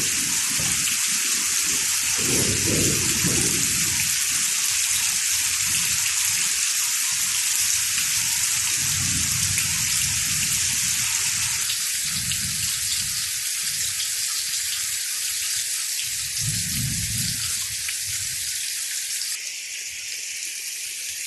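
Heavy rain pouring steadily, with low rumbles of thunder coming and going every few seconds; the rain eases slightly near the end.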